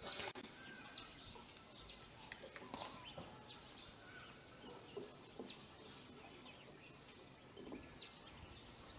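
Quiet open-air ambience with faint, scattered bird chirps.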